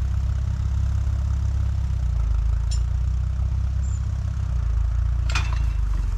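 Tractor engine running steadily while the tractor takes up the pull on a tree stump. There is a faint click a little under three seconds in and a short sharp sound about five seconds in.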